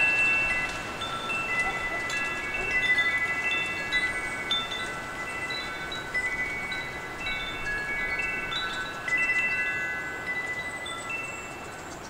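Wind chimes ringing in gusty wind: many clear, overlapping tones struck at random, with the wind's hiss underneath. They ring a little more softly near the end.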